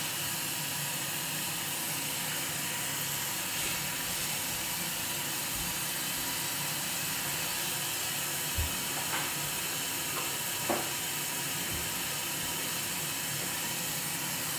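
Tap water running steadily into a sink, an even hiss, with a few faint knocks partway through.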